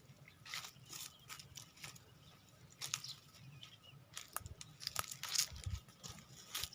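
Goats browsing: irregular crackling snaps and crunches of leaves and twigs being torn off and chewed, a few sharper snaps among them.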